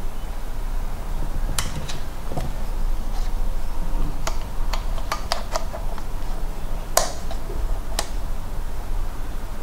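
Scattered sharp plastic clicks and taps as an RC truck and its pistol-grip radio transmitter are handled, with a quick run of clicks around the middle, over a low steady hum.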